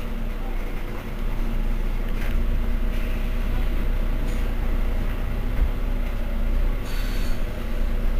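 Mercedes-Benz Citaro C2 city bus idling while stopped: a steady low engine rumble with a constant hum. A few brief, faint higher sounds come through about two, four and seven seconds in.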